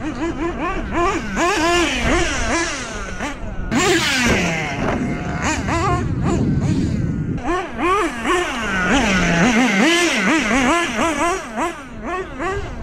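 Kyosho USA-1 RC monster truck's motor revving up and down over and over as it is driven hard across sand.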